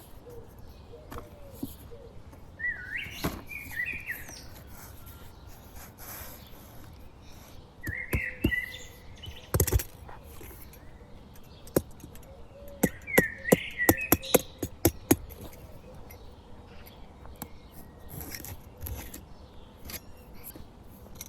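Bird-like chirping in three short bursts, with a run of sharp clicks and knocks in the middle.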